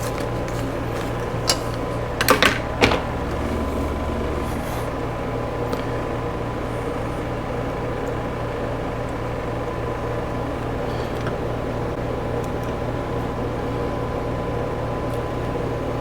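Steady mechanical hum of a running fan or similar machine. A few sharp clicks of small metal parts being handled come in the first three seconds.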